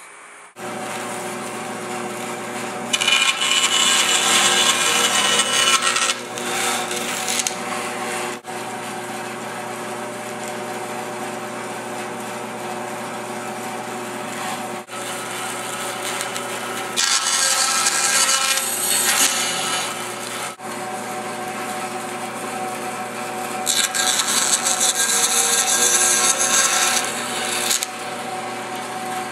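Band saw running with a steady hum, slicing thin pieces off a wood strip in a crosscut sled. Three times the blade cuts through the wood, each cut louder and lasting a few seconds.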